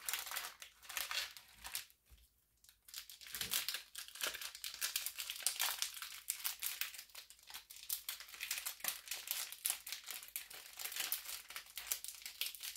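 Plastic packaging of smoked Polish sausages crinkling as the packs are opened and the sausages pulled out. There is a short break a little after two seconds in.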